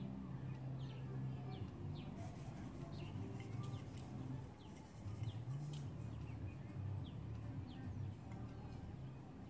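Small birds chirping in the background: short, falling chirps repeated every half second to second, over a low steady hum.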